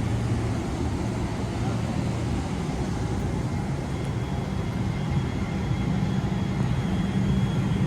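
Steady low drone of a vehicle, with a constant low hum throughout and a faint high whine coming in about halfway through.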